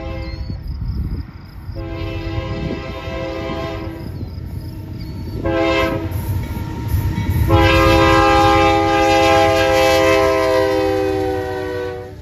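Air horn of a Union Pacific GE C45ACCTE (ES44AC) diesel locomotive leading a freight train, sounding a multi-note chord in the long, long, short, long pattern used for a grade crossing. The last long blast is the loudest and dips slightly in pitch as the locomotive passes, over the low rumble of the train.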